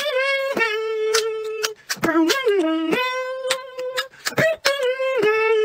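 Vocal beatbox loop: a voice hums long held notes, mostly on one pitch and dipping lower about two seconds in, while sharp mouth-made percussion cuts in on a steady beat.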